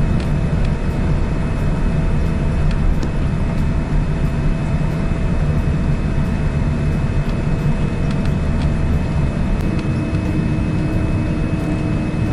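Steady cabin noise inside a Boeing 787-9 airliner taxiing: a low rumble with faint steady whining tones over it. A second low tone joins near the end.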